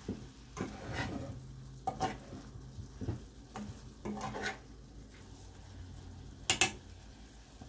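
Metal spoon stirring and scraping shrimp and vegetables in a frying pan: a string of irregular scrapes and knocks against the pan, the loudest near the end, over a faint sizzle of frying.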